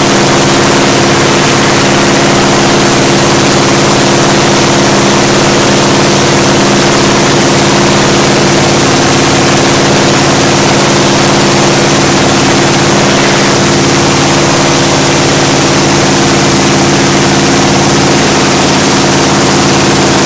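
Freshly rebuilt Ford 289 V8 running loud and steady through headers, holding one even engine speed during its break-in run on a new cam, valves and roller lifters.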